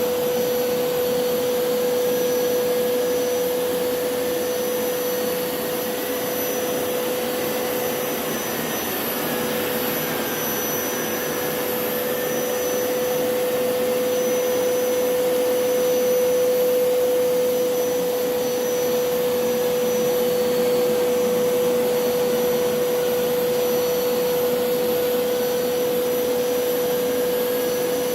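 Hoover PowerScrub Elite upright carpet cleaner running, its motor giving a steady hum under a continuous rush of air and suction.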